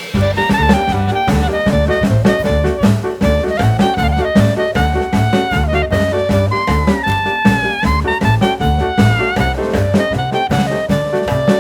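Upbeat swing-style jazz music with horns, a walking bass and a steady drum beat.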